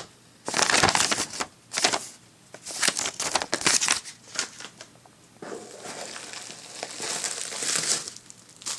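Paper and plastic packing material crinkling and rustling as it is handled: a few short irregular bursts, then steadier crinkling from about five and a half seconds in.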